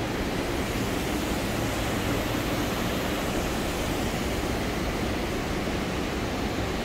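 Steady rushing noise of road traffic passing overhead, with no separate events standing out.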